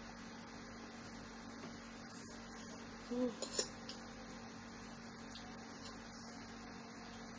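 Steady electrical hum and hiss of a poor recording, broken about three seconds in by a brief low pitched sound and a sharp click.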